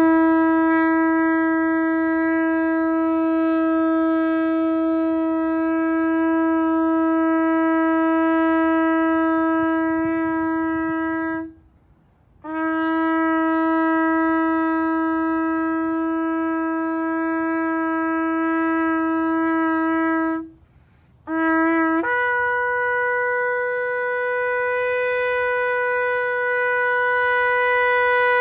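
Shofar blown in long held blasts on one low note, with short breaks for breath between them. The last blast starts on the low note, then jumps up to a higher note that it holds for several seconds.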